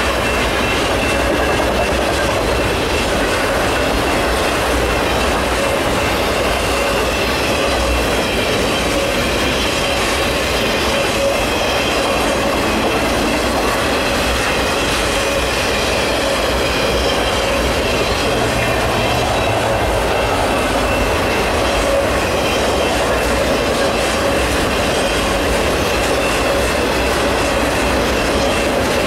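Freight train of autorack cars rolling past: a steady, even roar of steel wheels on rail with the clack of wheels over the rail joints and a thin high ringing from the wheels.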